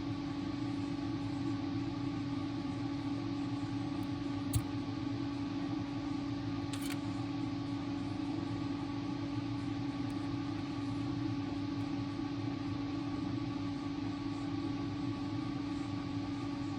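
Steady electrical hum from a refrigerator, one low tone with a few fainter higher tones over a steady hiss, with a single sharp click about four and a half seconds in.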